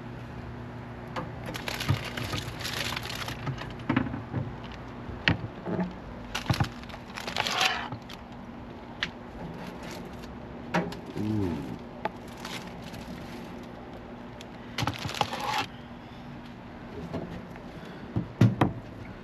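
Aluminium foil crinkling and rustling in several short bursts, with scattered clicks and knocks, as the foil-wrapped rack of ribs is handled and opened. A low steady hum runs underneath.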